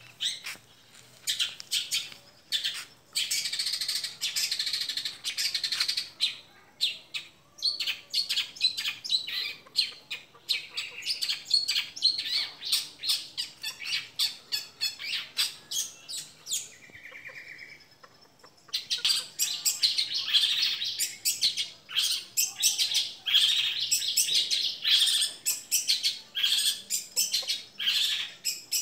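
Young long-tailed shrike (cendet) singing in its cage: a fast, tightly packed stream of short chirping notes, broken by a brief lull about two-thirds of the way through before the rapid song picks up again.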